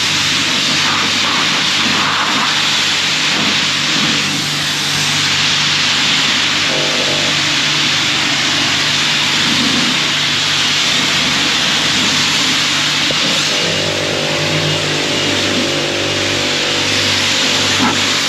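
High-pressure car wash wand spraying water against a pickup's body panels: a steady, loud spray hiss. Underneath it runs a low motor hum, which takes on a pulsing tone about two-thirds of the way through.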